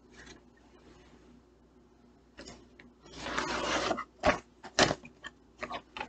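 Plastic DVD case picked up from a desk and handled: a noisy slide of about a second, then several sharp clicks and knocks of the case.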